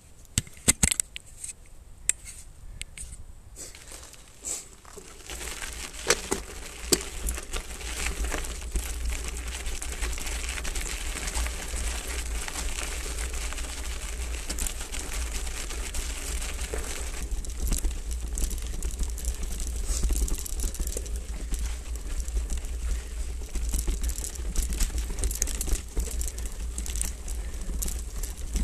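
Hardtail mountain bike rolling over loose gravel and rock: tyres crunching and the frame and parts rattling, with many small clicks. It starts quiet with a few sharp clicks, then grows louder and steadier from about six seconds in, over a low rumble of wind on the microphone.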